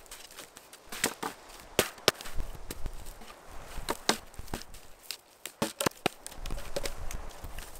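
Dry wood being handled and snapped: a string of irregular sharp cracks and knocks, with a few louder ones about a second in, around four seconds and just before six seconds.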